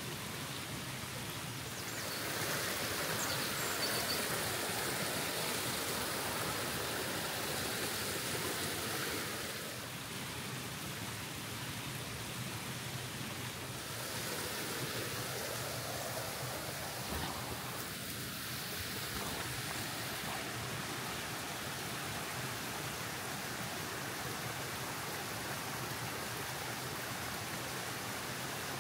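Steady rushing of a full, fast-flowing stream, a little louder for several seconds near the start.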